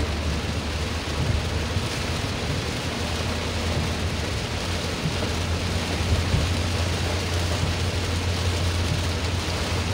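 Heavy rain drumming on a car's roof and windscreen, heard from inside the moving car, over a steady low drone of engine and road noise.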